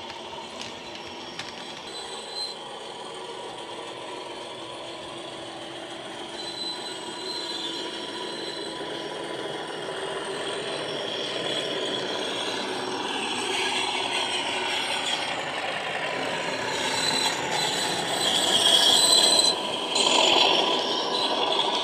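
Accurascale Class 37 model locomotive's factory-fitted DCC sound decoder playing a Class 37 English Electric diesel engine sound through its on-board speaker as the locomotive runs. It grows steadily louder as the locomotive comes past, and is loudest near the end.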